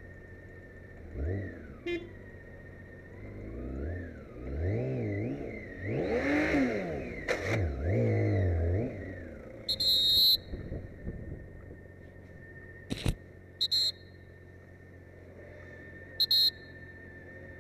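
BMW K1600GT police motorcycle's inline-six engine pulling away and revving up and down through the gears, then easing off. Short, loud, high-pitched blasts sound about ten seconds in and twice more near the end.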